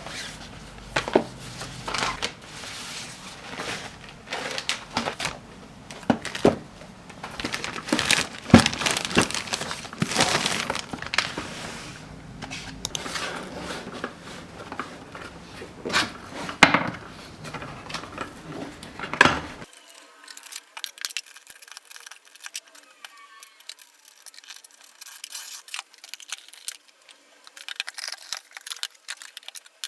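Objects being handled close up: a busy run of clicks, knocks and rustling with a few sharp clinks. About twenty seconds in it drops to faint, thin ticks and rustles.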